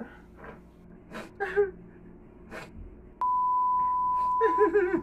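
Sharp breaths from a man suffering the burn of very spicy noodles, then about three seconds in a steady high beep tone switches on suddenly and holds, with a wavering, crying voice over it near the end.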